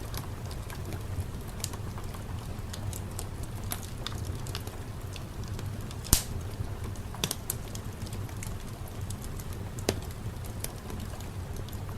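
Fireplace fire crackling: irregular sharp pops and snaps over a low steady rumble, the loudest pop about six seconds in and another near ten seconds.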